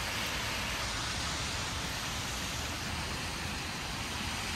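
Steady rain falling on a wet city street, an even hiss with road traffic under it.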